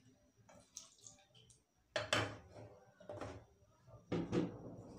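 Metal kitchenware clattering on a gas stove: a few sharp knocks of a spoon and pan, then a louder clatter near the end followed by a steady hiss from the hot frying pan.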